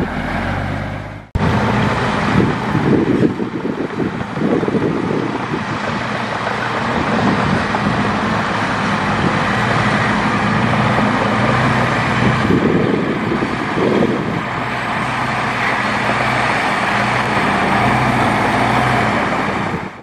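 Loaded Hyundai dump truck's diesel engine running steadily as it drives along a muddy dirt track. The sound cuts out briefly about a second in.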